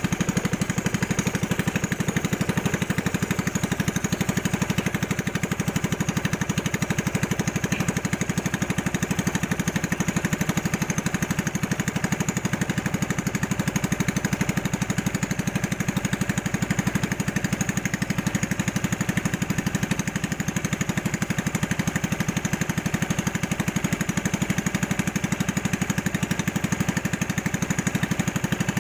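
Small engine driving a narrow river boat, running steadily at an even speed with a fast, regular pulse.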